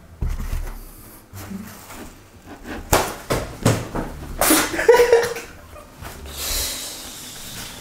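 A knock at the start, then a white crinkly sheet being pulled out and crumpled in the hands. It gives a few sharp crackles about three seconds in and a longer burst of rustling about a second later, and quieter rustling follows.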